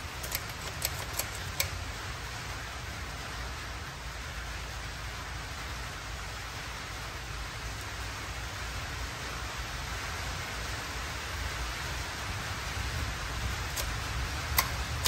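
Steady, even background hiss with a low rumble beneath it, and a handful of light metallic clicks near the start and again near the end as the lift-control lever and linkage on the tractor's hydraulic cover are handled.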